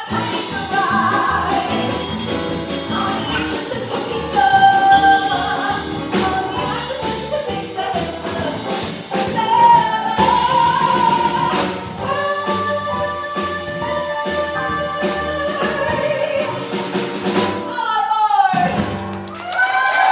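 A song performed live on stage: voices singing long held notes over instrumental accompaniment with percussion. The music breaks off briefly near the end.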